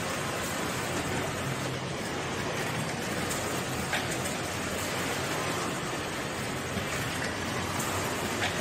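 Steady din of a large garment factory floor full of sewing stations, with a few faint clicks.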